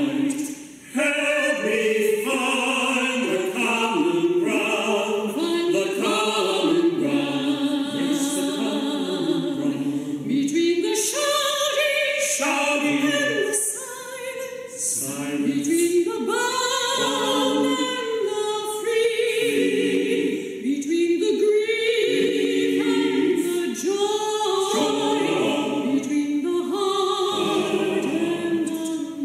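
A woman singing a slow sacred song, with long held notes and short breaks between phrases.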